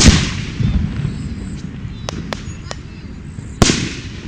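Aerial fireworks exploding: a loud boom at the very start and another near the end, each trailing off in a short rumble, with a smaller thud about half a second in and a few sharp crackling pops around two seconds in.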